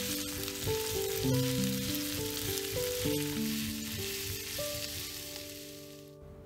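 Sliced onions and red bell pepper strips sizzling in oil in a frying pan as a wooden spatula turns them; the sizzle cuts off suddenly about six seconds in. A gentle melody of plucked notes plays underneath.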